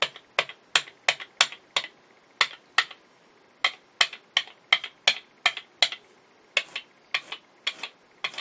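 Rubber brayer rolled quickly back and forth over tacky acrylic paint on a gel printing plate: a run of sharp ticking clicks, about three a second, with a couple of short pauses.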